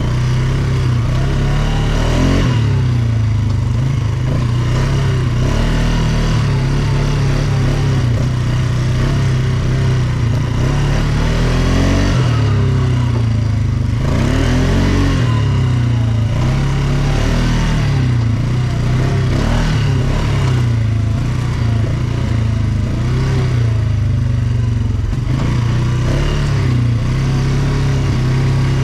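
ATV engine running under way on a trail, its pitch rising and falling again and again as the throttle is worked, with a steady rush of noise underneath.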